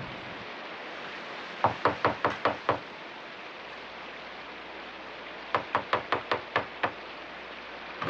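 Knuckles knocking on a door in two quick runs of six or seven knocks, about three seconds apart, over steady rain.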